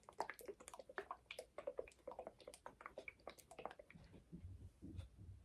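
Hot sauce bottle being shaken: faint, irregular clicks and liquid sloshing.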